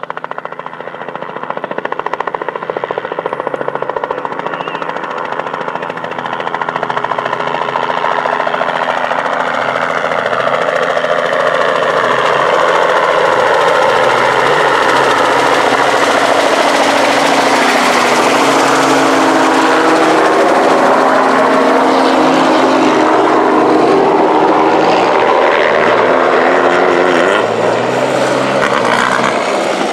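Low-flying helicopter's rotor chop building as it passes overhead, mixed with off-road race car engines running hard over the whoops, with pitch bending in the middle. Near the end a VW Beetle race car passes close.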